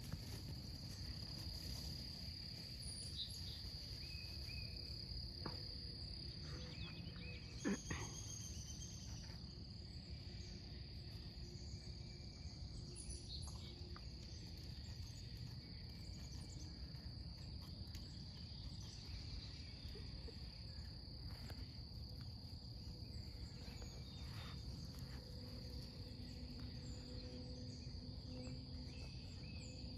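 Outdoor summer ambience: a steady, high-pitched drone of insects such as crickets over a low rumbling background noise, with a few faint chirps and one brief sharp sound about eight seconds in.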